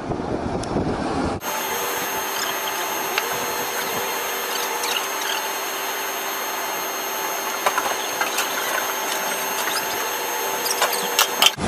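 Wind rumble for about a second, then a steady mechanical hum and whine with several constant tones inside an aircraft cargo hold, with a few sharp clanks and knocks near the end as a helicopter is pulled aboard.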